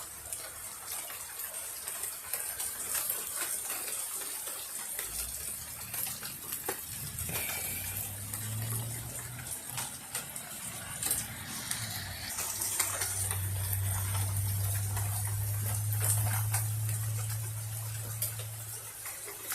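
Thunderstorm ambience: a steady hiss of light rain with scattered small ticks, and a low rumble of thunder that builds about five seconds in and holds through the second half.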